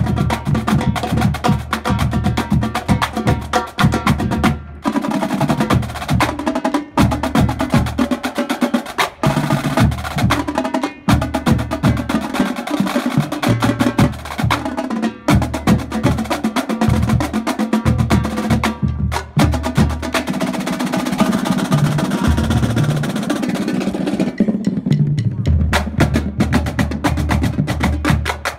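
Marching drumline playing a warm-up: snare drums, tenor drums and tuned bass drums in fast unison patterns. There are brief pauses between phrases.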